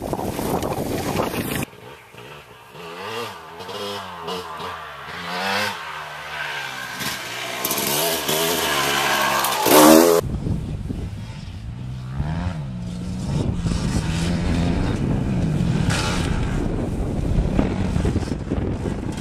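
Dirt bike engines on off-road trails, in several cuts: a brief rush of wind noise, then an engine revving up and down in pitch, loudest about ten seconds in, then after a sudden change another dirt bike engine running and revving.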